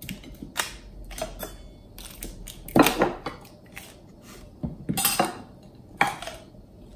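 Small stainless steel tumblers clinking and knocking on a plate as frozen ice-cream-filled wrappers are pulled out of them: a scattering of sharp knocks, the loudest about three seconds in and two more near the end.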